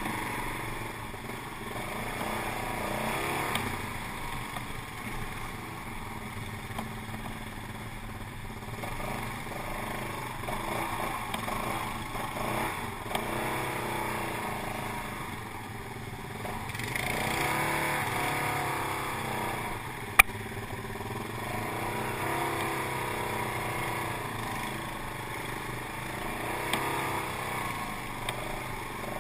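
Quad bike (ATV) engine running under the rider on a rough trail, its revs rising and falling with the throttle, with rattles from the bouncing machine. A single sharp knock comes about twenty seconds in.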